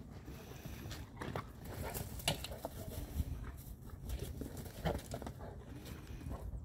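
Two large dogs, a Boerboel and a Serbian Defense Dog, play-wrestling on dry grass and dirt: paws thudding and scuffling, with a few sharp knocks.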